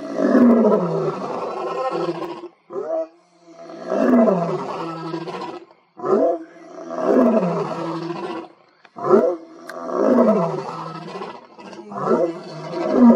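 Male African lion roaring: a bout of about five long, loud roars, each falling in pitch, with a short, sharp in-breath between them.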